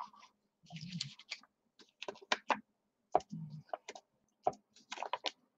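Paper and craft pieces handled on a tabletop: an uneven run of short clicks, taps and light rustles.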